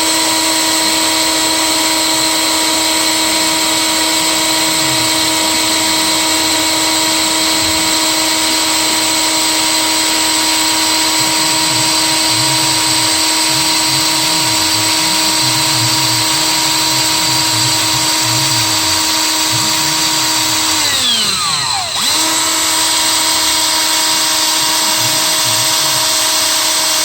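Power drill running at a steady high speed, whining evenly as it bores into a seized EGR bolt. About three-quarters of the way through, the motor's pitch drops sharply and then climbs straight back to full speed.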